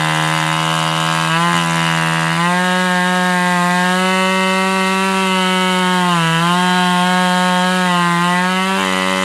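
Chainsaw engine running at high revs, its pitch sagging briefly a few times as the chain bites into wood.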